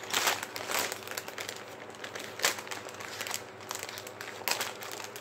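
Thin plastic LEGO polybag crinkling as it is handled, in irregular rustles with a few sharper, louder crackles about two and a half and four and a half seconds in.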